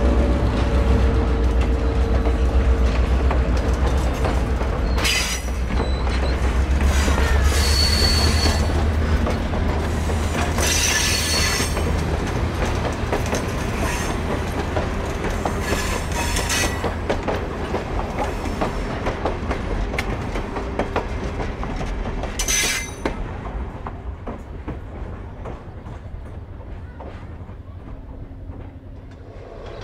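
F40PHM-2C diesel-electric locomotive passing with a train: a heavy diesel rumble, wheels clicking over rail joints, and several short high-pitched wheel squeals. The sound fades away over the last several seconds.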